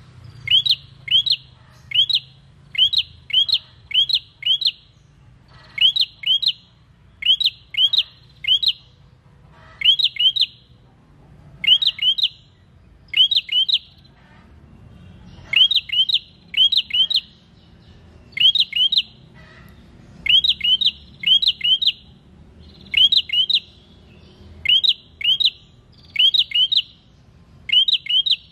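Caged prenjak singing: quick groups of two to four sharp, rising whistled notes, repeated every second or two, with a short pause about halfway through.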